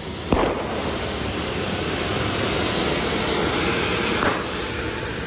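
Anar (ground fountain firework) spraying sparks with a steady, loud hiss. It is broken by a sharp crack about a third of a second in and another about four seconds in.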